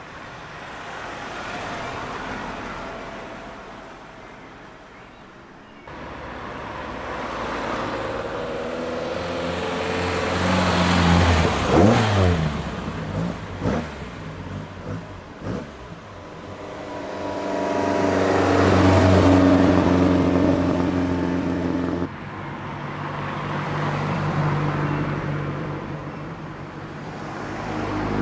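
Several Ford cars driving away one after another, each engine rising in pitch as it accelerates past. The loudest, about a third of the way in, revs hard and is followed by a few short, sharp bursts of sound.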